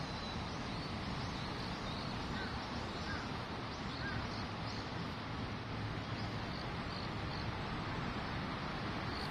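Small birds chirping in short, repeated high calls over a steady background hum.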